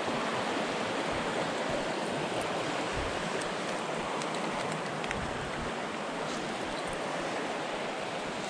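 Small mountain trout stream rushing over rocks, a steady even rush of water, with a few faint light clicks here and there.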